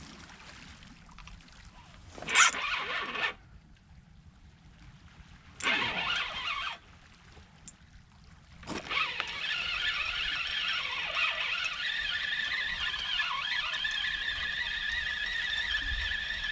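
Fishing reel on a beach rod being wound in to retrieve the line: two short bursts of winding, then steady continuous winding from about nine seconds in.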